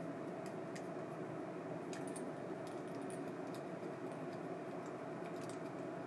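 Faint, irregular small ticks and clicks from an ABU Ambassadeur 2601C IAR baitcasting reel being handled and worked at the handle and star-drag side, over a steady low hum.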